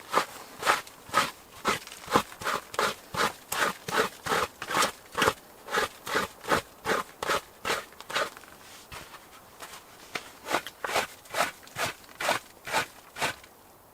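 Rhythmic crunching in dry leaf and pine-needle litter, a little over two strokes a second, pausing briefly past the middle and then resuming.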